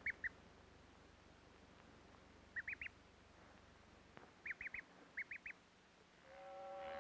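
Newly hatched duckling peeping: short, high peeps in quick runs of three, four runs in all.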